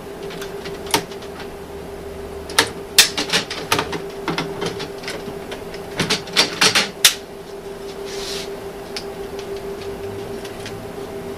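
Irregular clicks and knocks of a laser printer's fuser unit being pulled out of its housing and handled, plastic and metal parts knocking together, over a steady low hum.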